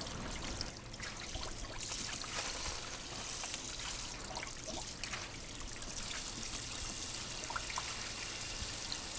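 Garden hose shower nozzle spraying water onto akadama soil granules in a shallow tub of water, a steady splashing hiss as the soil is rinsed clean.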